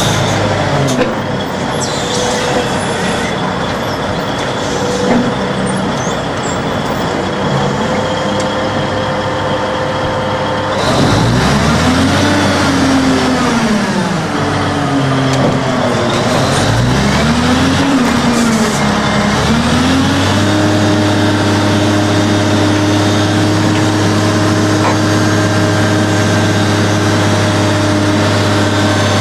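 Diesel engine of a large wheeled log loader working its grapple to load logs. It runs steadily with a thin high whine over it for the first ten seconds, then the revs rise and fall several times and are held high and steady for the last several seconds.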